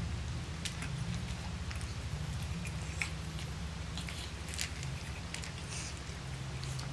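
Boston Terrier puppies eating dry kibble from a metal pan: scattered small crisp crunches and clicks, over a steady low hum.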